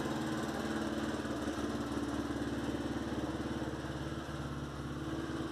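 Engine of a tuned street-drag motorcycle with a performance camshaft, idling with a steady, even pulse.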